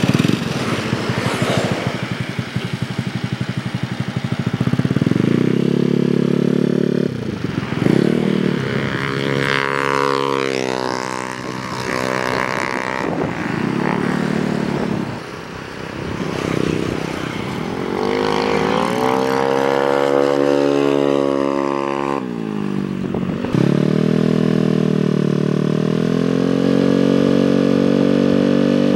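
Honda Vario 110 scooter engine, bored up to 130cc and fitted with a racing exhaust, revving and accelerating in several pulls, its pitch climbing and dropping back each time. In the last few seconds it runs at a steadier pitch while riding.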